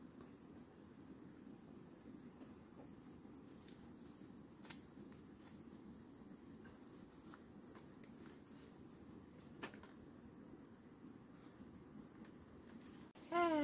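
An insect trills at one high pitch in stretches of about a second with short breaks, over faint outdoor background noise. Two soft taps fall near the middle, and a short high voice breaks in at the very end.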